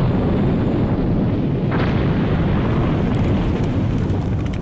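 Open-pit coal mine blast: a sustained low rumble of explosive charges going off in a bank of deep blast holes. A fresh burst comes about two seconds in, and the rumble fades at the end.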